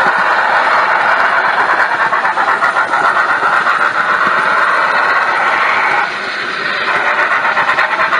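HO-scale model train running: wheels rolling along the rails with a fast, steady clatter, mixed with the running sounds of a sound-equipped Broadway Limited steam locomotive. The noise drops briefly about six seconds in.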